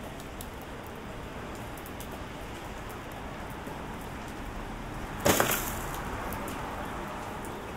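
Steady rain falling, with scattered faint drop ticks. A brief loud sharp noise cuts through it about five seconds in.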